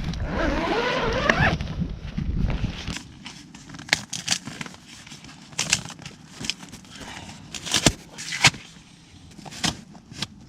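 A squeaky, wavering sound in the first second or so, then scattered sharp clicks and knocks of things being handled, such as a packaged item being moved and unpacked.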